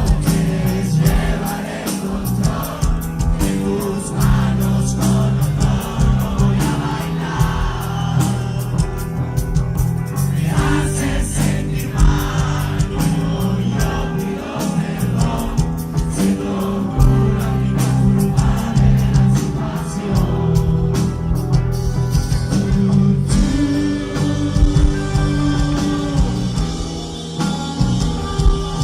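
Live rock band playing with singing, drums hitting steadily under sustained guitar and vocal notes.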